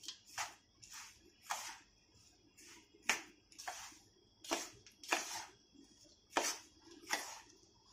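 Roasted urad and moong dal flour with hot ghee being mixed in a bowl: about ten soft scraping strokes at irregular intervals.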